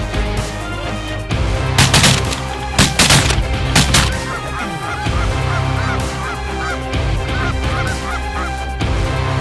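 Canada geese honking, a rapid run of short calls through the second half, over background music with heavy drum hits about a second apart in the first half.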